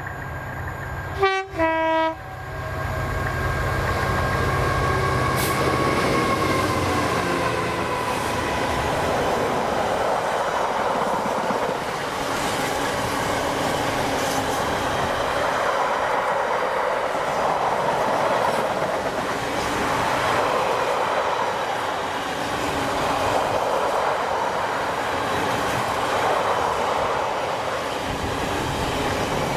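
A diesel locomotive sounds its two-tone horn about a second in, a short high note then a lower one, while its engine drones. The engine note drops as it passes, and a long freight train follows, its wagons rolling and clattering over the rail joints.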